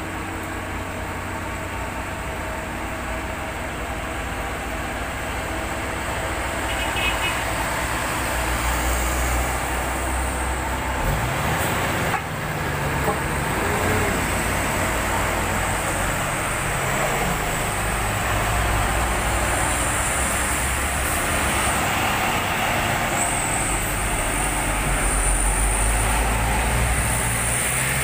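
Heavy loaded diesel trucks climbing a steep hill in low gear, their engines labouring with a deep rumble, over a steady hiss of tyres and rain on a soaked road. The rumble grows louder as trucks come close, strongest about a third of the way in and again near the end.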